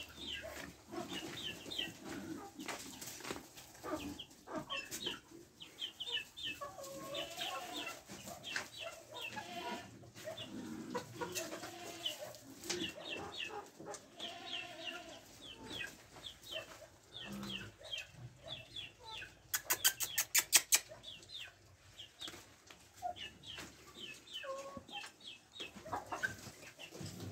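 Chickens clucking and giving short high calls in little groups. A quick run of sharp clicks, the loudest sound, comes a little past two-thirds of the way through.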